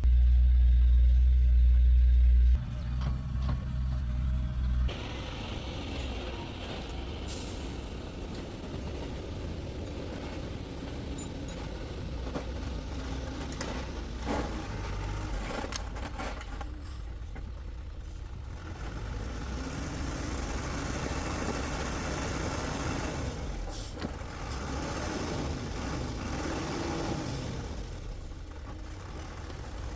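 Heavy diesel vehicle engine running steadily. It opens with a loud low hum for the first couple of seconds and drops in level about five seconds in. A few sharp clicks come about halfway through and again near the end.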